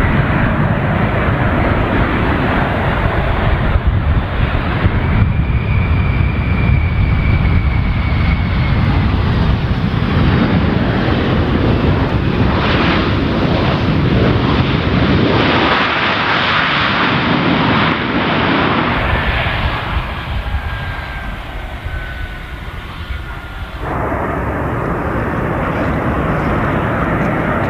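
Boeing C-17 Globemaster III's four turbofan engines running loud as the aircraft passes low and rolls on a dirt strip, with a high whine that falls slightly in pitch as it goes by, twice. The sound changes abruptly at several points where shots are cut together, and is somewhat quieter for a few seconds near the end.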